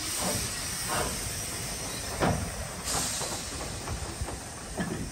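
Steam locomotive hissing steam over a low rumble, with a few irregular knocks and a brief stronger burst of hiss about three seconds in.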